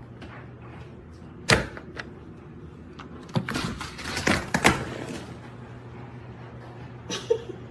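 Knocks and bangs, likely on a door or wall, to set off a dog: one sharp bang, a lighter knock half a second later, then a quick run of knocks a couple of seconds after, and a short burst near the end, over a steady low household hum.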